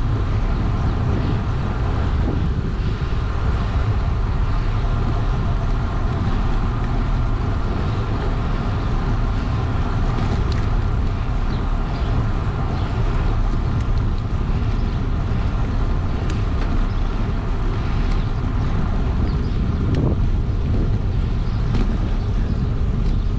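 Steady wind rumble on the microphone and tyre noise from a bicycle rolling along an asphalt road.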